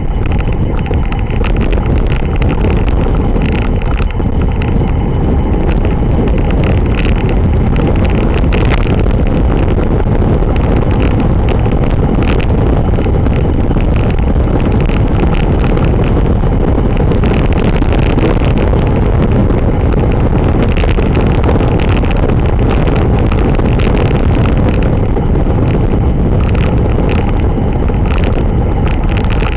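Steady rush of wind buffeting the microphone of a camera on a road bike riding at speed, mixed with tyre noise on the tarmac.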